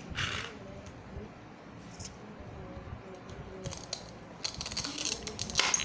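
Plastic toy-kitchen pieces clicking and scraping: a plastic cutting board is set down and a toy knife cuts a play corn cob apart, with a denser run of clicks and scrapes near the end.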